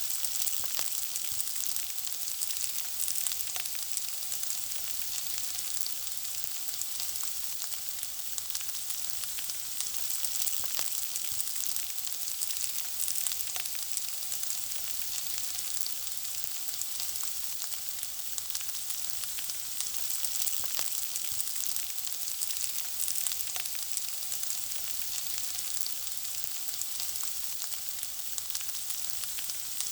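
Food frying: a steady high-pitched sizzle with many small, irregular crackles and pops.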